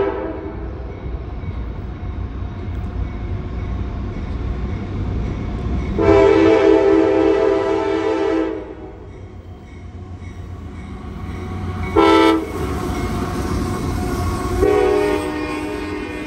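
Freight train's diesel locomotive horn, a multi-note chord, sounding in blasts: one ending right at the start, a long blast about six seconds in, a short one about twelve seconds in, and another long one near the end. This is typical of the long-long-short-long crossing signal. Under the horn is a steady low rumble of the passing locomotives and train.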